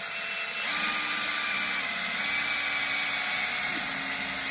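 Electric drill running continuously as it bores a hole through aluminum angle stock. Its motor whine grows louder under a second in, then holds steady.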